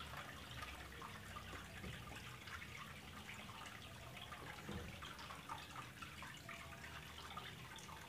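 Faint trickling and dripping of water draining from a Samsung single-tub washing machine's drain while its drain valve is held open by hand, draining the tub manually because the machine is dead.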